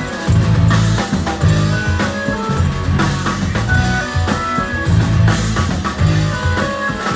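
Prog rock band playing live: electric guitar, bass, organ and drum kit, the low end moving in short repeated phrases.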